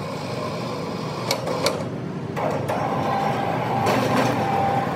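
Steady mechanical noise with two sharp metallic knocks early on, and a steady whine that sets in about halfway through.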